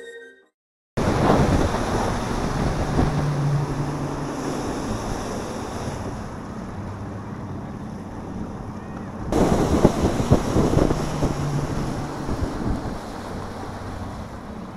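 Bass boat running at speed under outboard power: a low engine drone beneath rushing water and wind buffeting the microphone, surging louder about nine to eleven seconds in.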